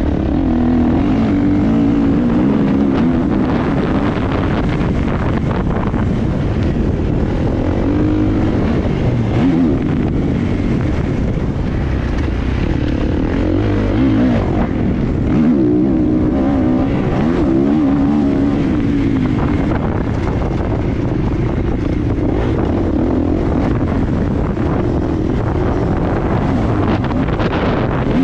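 Motocross bike engine running hard, its pitch rising and falling repeatedly as it revs through the gears.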